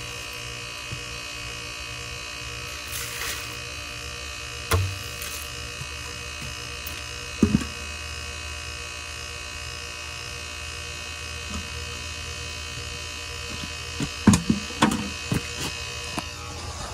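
A machine's steady buzz with a high whine, broken by a few knocks and clatters. The whine stops about a second before the end.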